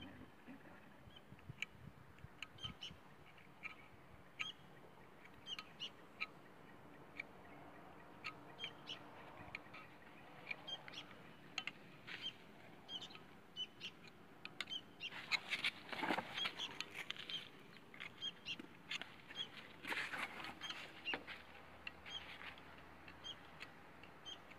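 Scattered light metal clicks and taps as a screwdriver works around the floating seal ring seated in an excavator final drive housing, with two louder stretches of rapid clicking and scraping midway and a few seconds later. Birds chirp in the background.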